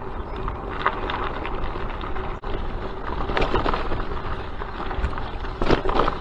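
Bicycle tyres crunching and rattling over a gravel and dirt road, with a steady low rumble and many sharp crackles and knocks; the crunching is heaviest a little past halfway and again near the end.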